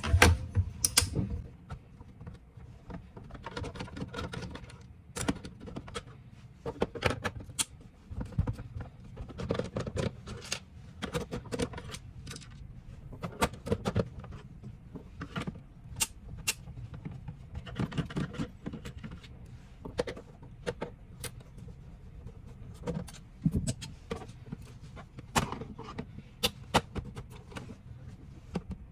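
Hands working on an APC UPS casing with screwdrivers to reach the battery: irregular clicks, taps and small rattles of tools, screws and plastic parts.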